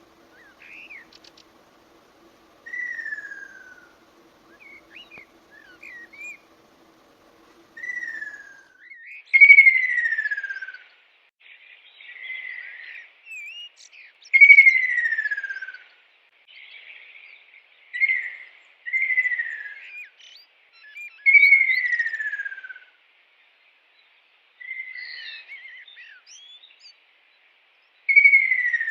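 A bird calling with loud, clear whistled notes, each sliding down in pitch over about a second, repeated every few seconds with softer chirps in between. A faint low hum sits under the first several seconds.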